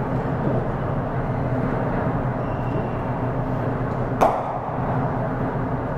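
One sharp crack of a cricket bat striking the ball, about four seconds in, over a steady background hum.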